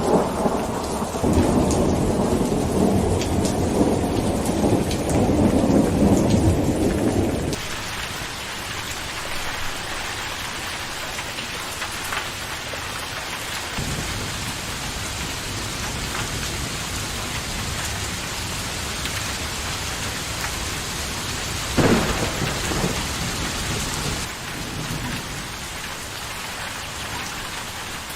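Steady rain falling, with a long low rumble of thunder over the first seven seconds or so that stops abruptly. After that the rain hiss continues alone, broken by one brief sharp thump a little over three quarters of the way through.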